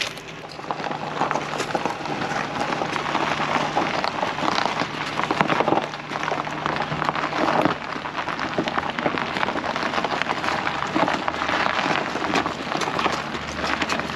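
A car being pushed slowly: a steady crackling, crunching noise of tyres rolling, with a low steady engine hum that fades out about halfway through.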